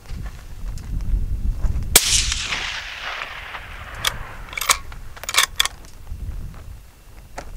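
A single shot from a Ruger American Gen II bolt-action rifle in .223 Remington, its report echoing away over about two seconds. A few sharp metallic clicks follow, the bolt being cycled for the next shot, over a low rumble.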